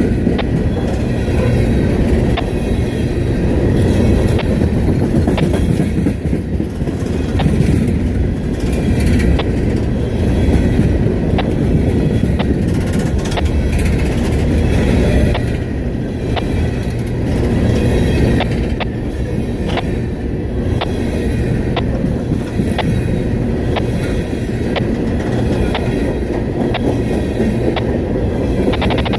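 Empty coal train cars rolling past close by: a loud, steady rumble of steel wheels on rail, with regular clicks as the wheelsets cross rail joints.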